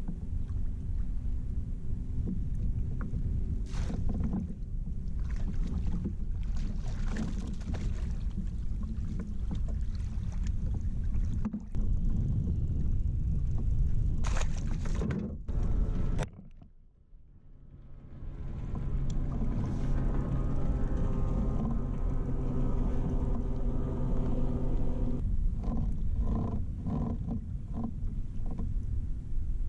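Wind and water rumbling around a fishing kayak on open lake water, with a few knocks of gear against the hull. After a sudden break about 16 seconds in, a steady hum of several even tones runs for about seven seconds, then a few short knocks.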